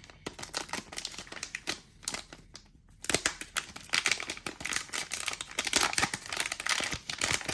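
A trading-card pack wrapper torn open and crinkled by hand, with scattered crackles at first and a dense run of crinkling from about three seconds in.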